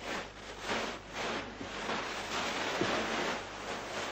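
Plastic packing wrap rustling and crinkling in irregular swishes as hands dig through it inside a cardboard box.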